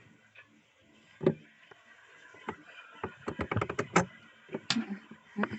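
A scatter of sharp clicks and knocks, with a quick run of clicks about three to four seconds in.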